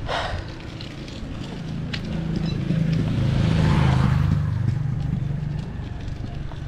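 A motor vehicle's engine passing close by, swelling to its loudest about midway and then fading.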